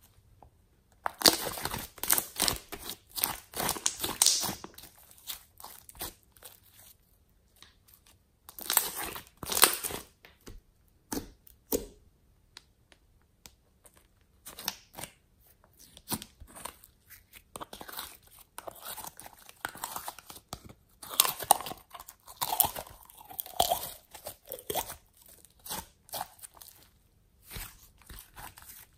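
Hands stretching, squeezing and kneading glossy slime: irregular bursts of sticky crackling and clicking, with short quiet pauses between.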